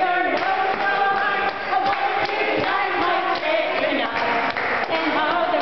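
A group of people singing together unaccompanied, with hands clapping along in time.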